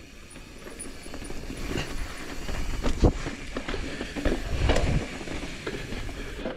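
Mountain bike rolling over rock: tyres grinding and the chain and frame rattling, with sharp knocks as the wheels hit rock, the loudest about three seconds in.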